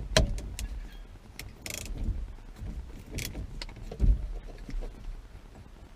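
Hand tools on the steering wheel's centre nut: irregular metal clicks and clinks of a socket wrench being fitted and worked to crack the nut loose, with a dull thud about four seconds in.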